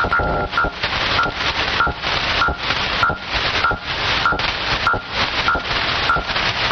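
Recorded shortwave Link-11 signal, a NATO tactical data-link modem transmission. It is a loud, dense rasping data buzz with a short tone beep repeating about every 0.6 seconds.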